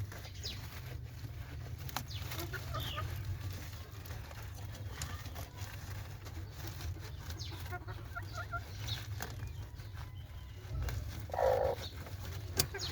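Domestic chickens clucking softly now and then, with a louder cluck near the end, over a steady low hum.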